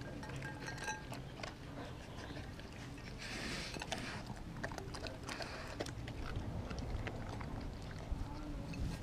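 A Doberman licking and chewing food in a glass dish, with scattered small clicks of teeth and tongue against the glass and a brief hissing rush about three seconds in.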